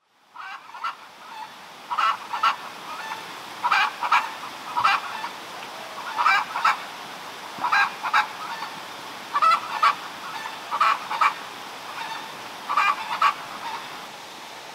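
Geese honking repeatedly, mostly in quick pairs of calls, over a steady rushing hiss.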